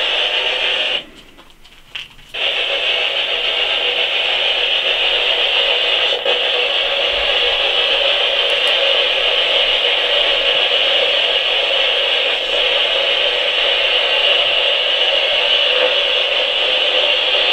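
Spirit box, a radio scanner sweeping through stations, putting out a steady hiss of radio static. The static cuts out for about a second and a half near the start.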